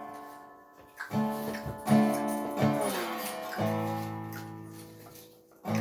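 Acoustic guitar being strummed. A chord fades out, then three strums come about a second in, and a last chord is left ringing and fading for about two seconds before the next strum right at the end.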